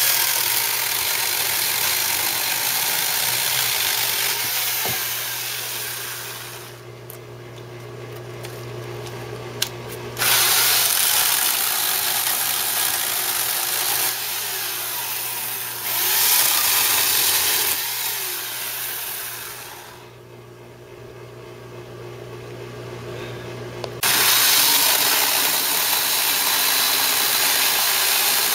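Corded Harbor Freight Portland 14-inch electric chainsaw cutting through dead peach wood, the chain chewing steadily through the trunk. It runs in three long cuts, easing off twice for a few seconds in between.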